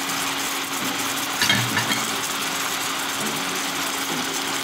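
Steady hum of an induction cooktop running, with coconut milk simmering around the fish in a nonstick pan; a few light taps about a second and a half in.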